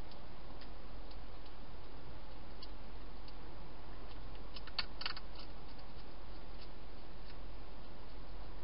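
Wild hedgehog crunching dry food: sparse crisp clicks, with a short cluster of louder ones about five seconds in, over a steady hiss.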